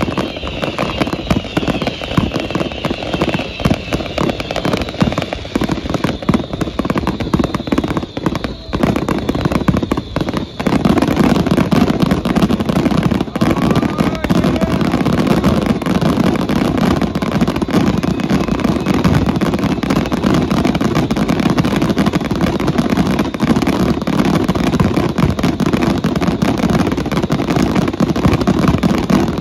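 Fireworks grand finale: a rapid barrage of overlapping shell bursts and crackles, with faint falling whistles in the first few seconds. About ten seconds in, it thickens into a louder, continuous rumble of bursts.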